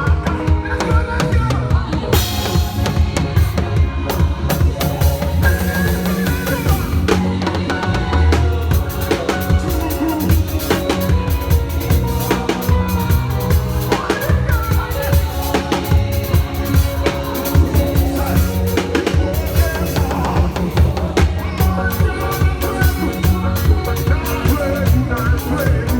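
Live church praise music driven by a drum kit playing a busy beat of kick, snare and rimshots, over sustained bass and other pitched instruments.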